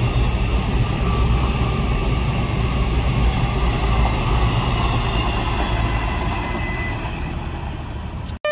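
A vehicle's steady rumble with faint high tones over it, slowly fading over the last few seconds and cutting off suddenly just before the end.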